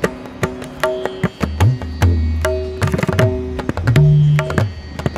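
Music led by tabla drumming: quick, sharp strokes on the small drum over deep bass-drum notes that slide up in pitch.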